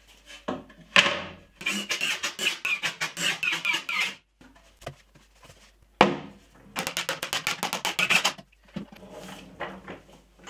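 Wooden cart parts being handled and fitted together: two sharp wooden knocks, about a second in and about six seconds in. Each is followed by roughly two seconds of rapid, even clattering.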